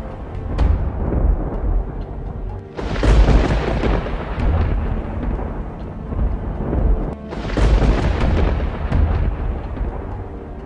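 Dramatic soundtrack music with deep rumbling thunder effects. Two big thunderclaps swell up, about three seconds in and again about seven seconds in.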